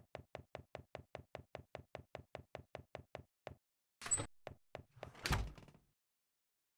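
Quick, even footsteps, about five a second, that stop about three and a half seconds in. A short clatter follows as a door opens, and about a second later the door shuts with a thud.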